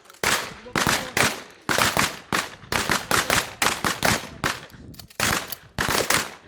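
Several shotguns fired one after another down a firing line: a quick, irregular run of loud, overlapping shots, about two or three a second, each followed by a short echo.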